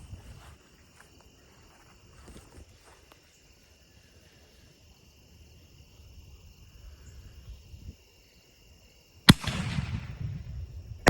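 Consumer aerial firework shell going off: after a quiet wait with insects trilling steadily, two sharp bangs about two seconds apart, each trailing into a long echo.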